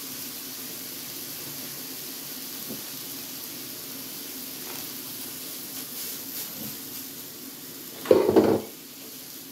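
Steak and shrimp sizzling steadily in a hot pan, with butter just dabbed onto them. A brief louder noise stands out about eight seconds in.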